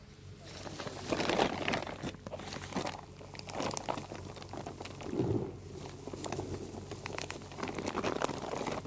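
Wet multi-finish plaster being stirred by hand in a plastic tub: uneven scraping, crackling strokes, one every second or so.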